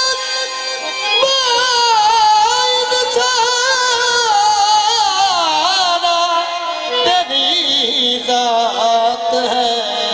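Qawwali: two harmoniums playing sustained chords and melody while a singer holds long, wavering wordless notes that glide slowly downward.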